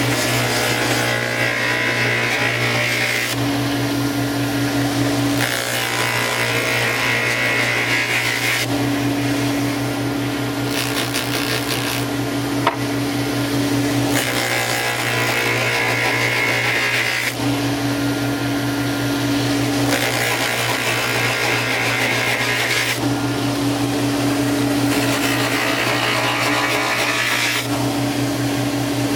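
Electric buffing machine running, its cloth buffing wheels spinning while a silver-plated copper daguerreotype plate is polished against them. Under a constant motor hum, the sound switches every few seconds between a steady tone and a higher hissing rush.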